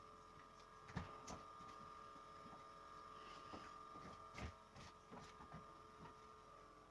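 Near silence: a faint steady hum with a few light clicks and taps.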